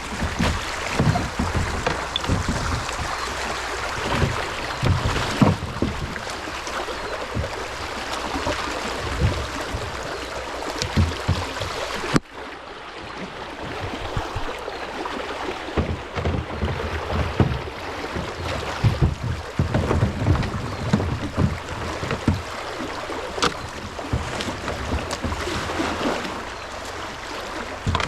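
Floodwater of a fast-flowing creek rushing around a small kayak, with irregular splashes and knocks from paddle strokes and the hull. The sound changes abruptly about twelve seconds in.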